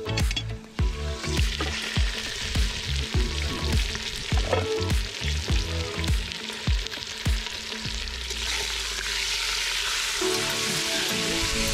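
Chicken pieces sizzling as they brown in a hot cast-iron potjie pot and are turned over with a utensil, the sizzle building from about a second in. Background music with a steady beat plays under it, dropping out briefly before returning near the end.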